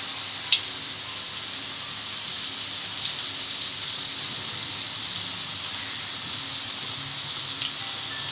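Wontons deep-frying in hot oil in a wok: a steady sizzle with a few sharp crackles, the loudest about half a second in and around three seconds.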